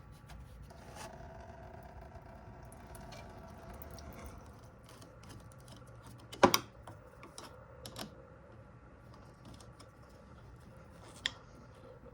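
Hand tools working the skid plate bolts under a 2001 Toyota 4Runner: light clicking and metal taps, with one sharp metallic clank about six and a half seconds in and a smaller one near the end.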